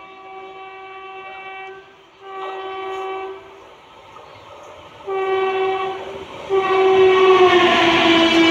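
Indian Railways locomotive horn sounding a series of blasts: three shorter ones, then a long, loudest one starting about two-thirds of the way in. The pitch of the long blast drops as the train approaches and passes at speed, with the rising noise of the train on the rails beneath it.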